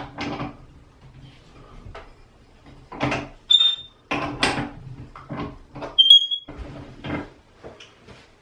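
An old shower head being worked loose and unscrewed from its shower arm: a run of short metal scrapes and knocks, with two brief high squeaks, one about three and a half seconds in and one about six seconds in.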